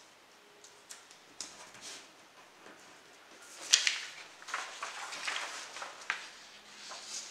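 Sheets of printer paper taped together into a pattern being lifted and handled, rustling and crackling, loudest about halfway through. A few light taps and rustles come before.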